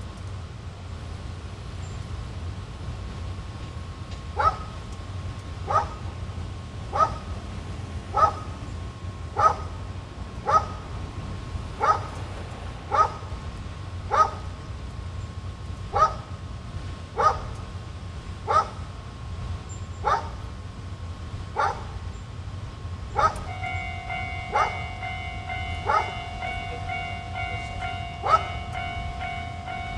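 A dog barking repeatedly, one short bark about every second, over a steady low hum. About three-quarters of the way in, a steady pitched tone with several overtones starts and holds.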